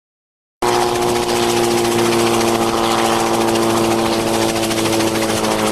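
Helicopter running steadily, its engine and rotor giving a constant hum of several fixed pitches over a hiss; it cuts in suddenly about half a second in.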